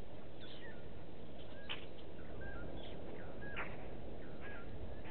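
Blacksmith lapwings calling: two short, sharp calls about two seconds apart, with softer chirps between, over a steady outdoor hiss.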